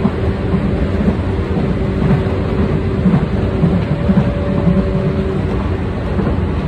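A Tokyu 8500 series electric train stands idle at an underground platform, giving a loud, steady low rumble with a steady electrical hum from its onboard equipment.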